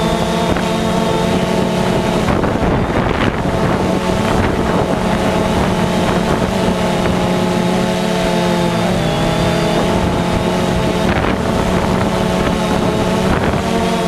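DJI Phantom 2 quadcopter's electric motors and propellers droning with a steady, many-toned whine, heard through the camera mounted on it, dipping slightly in pitch about nine seconds in. Wind buffets the microphone in gusts a few times.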